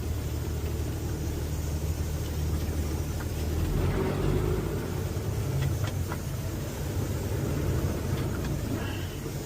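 Semi truck engine running steadily at low speed, a constant low hum.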